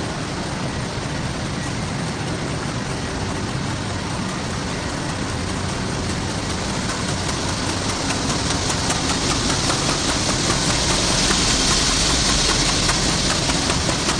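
Steady industrial machinery running, a dense mechanical drone. A hiss grows louder from about the middle, with many faint ticks through it.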